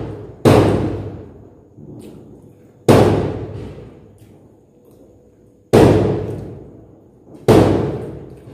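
Four loud, sudden knocks or thuds, irregularly spaced, each dying away over about a second.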